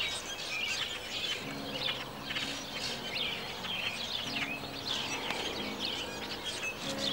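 Many small birds chirping, the loudest sound throughout. From about a second and a half in, an acoustic guitar plays soft, held low notes in short phrases.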